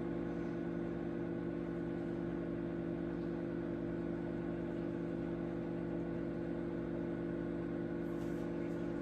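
Microwave oven running with a steady electrical hum while it softens a cube of butter.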